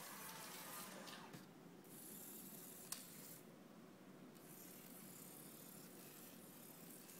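Faint mechanical whirring of small toy-robot drive motors and gears, with a single sharp click about three seconds in.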